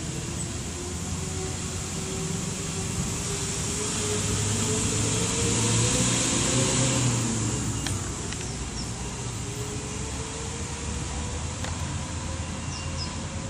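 A motor's hum rising slowly in pitch and growing louder for about seven seconds, then holding steady.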